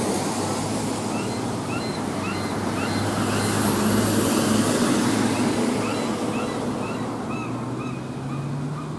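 Outdoor traffic noise: a steady wash with a low engine hum that swells in the middle as a vehicle passes, then eases. Over it, a short high chirp repeats evenly about twice a second.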